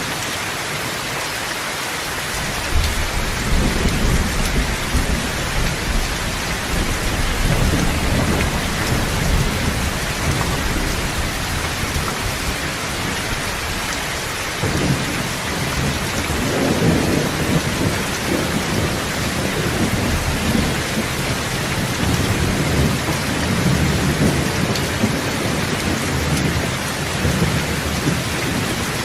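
Steady rain with rolling thunder: low rumbles come in a few seconds in, ease off, and build again about halfway through, over the constant hiss of the rain.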